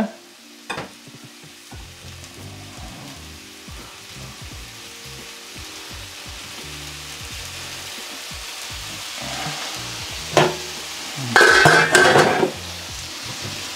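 Chicken sizzling steadily in a frying pan, with soft background music. About eleven seconds in, a stainless-steel pot and its lid clatter loudly in a steel sink.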